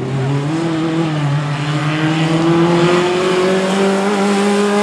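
Small hatchback rally car's engine pulling under hard acceleration, the revs climbing steadily through one gear.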